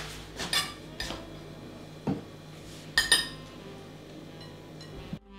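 A metal teaspoon clinking against a small mesh tea strainer as flour is sifted through it. It comes as a handful of sharp, irregular taps.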